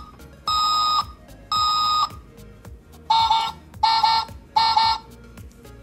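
Electronic beeps from the button-activated sound module of a Road Rockers Small Town Sanitation Recycling Vehicle toy: two long, even beeps a second apart, then, about three seconds in, three shorter beeps at a lower pitch.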